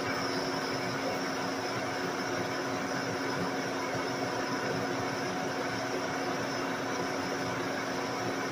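Metal lathe running steadily while a drill bit in the spinning headstock bores into a workpiece held in the tailstock, with cutting oil flooding the cut: an even machine hum with a few steady tones.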